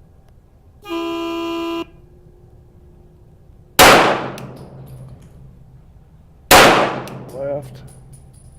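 A start buzzer sounds for about a second. Then a CZ P-10F 9mm pistol fires two shots about three seconds apart, each dying away in echo: the opening shots of a timed-fire string.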